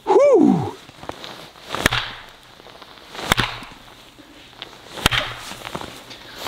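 SOG Camping Axe striking into pieces of ash on a chopping block: three sharp blows of the blade into the wood, about one and a half seconds apart. Just before them comes a brief, loud cry falling in pitch.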